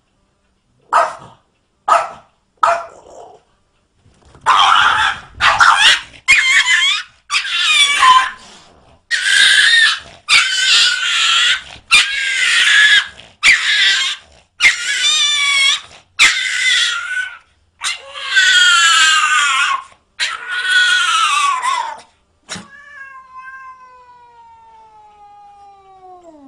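A cat caterwauling in a long run of drawn-out, wavering yowls, one after another, as it faces off with a Chihuahua. It is preceded by a few short yaps and followed near the end by a click and a long tone that slides down in pitch.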